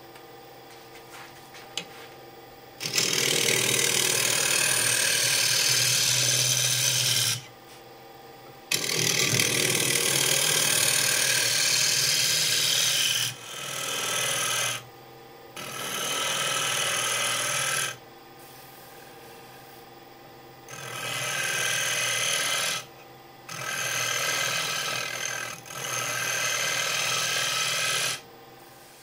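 Wood lathe running with a steady hum while a scraper cuts across the face of a spinning cross-grain wooden disc: a loud rasping hiss in about seven passes of one to five seconds, the first two the longest. The lathe keeps running in the gaps between passes.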